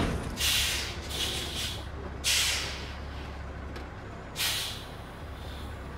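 Stopped dump truck idling with a low rumble, broken by four short hisses of air from its brakes.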